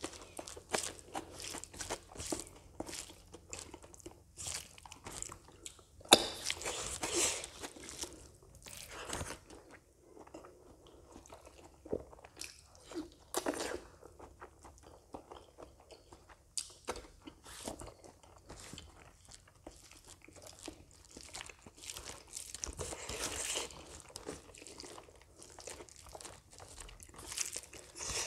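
Close-miked eating by hand: a steady run of chewing, lip smacks and crunching as mouthfuls of rice and fried potato are eaten. Twice, about six seconds in and again near the 23-second mark, there is a longer, louder stretch of rustling from fingers working the rice on the banana leaf.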